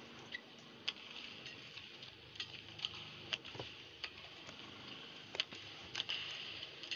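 A badminton rally: rackets striking the shuttlecock back and forth with sharp clicks about once a second, with short squeaks of court shoes between the shots.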